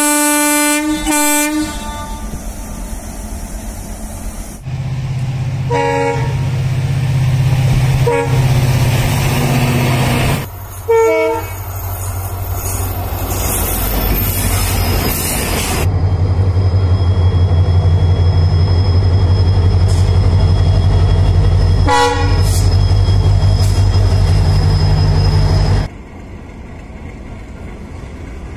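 Indian Railways locomotives passing: a long horn blast at the start and several short horn toots later, over the steady low drone of diesel locomotive engines and the rumble of trains on the rails.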